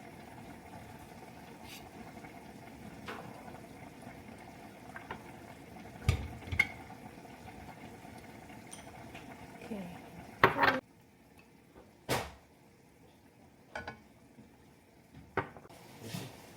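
Kitchen clatter: dishes and utensils clinking and knocking a handful of times over a steady bubbling, boiling-pot background that cuts off suddenly about two-thirds of the way through.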